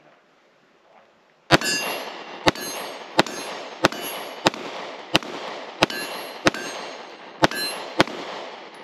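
Sig Sauer P365XL 9mm striker-fired pistol firing about ten shots at a steady slow pace, roughly two-thirds of a second apart, starting about a second and a half in. Each shot echoes.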